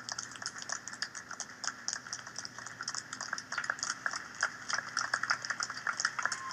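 Audience applauding, with the separate hand claps easy to pick out.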